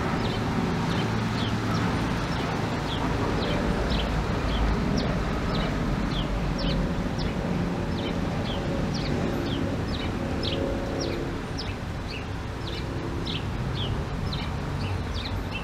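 Muscovy ducklings peeping: a steady run of short, high, falling peeps, about two a second.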